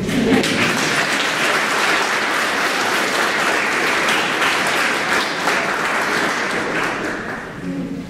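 Audience applauding: many hands clapping in a dense, steady patter that starts at once and fades away near the end.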